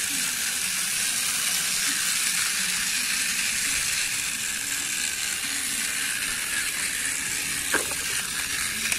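Steady, even hiss of background noise, with a single faint click about eight seconds in.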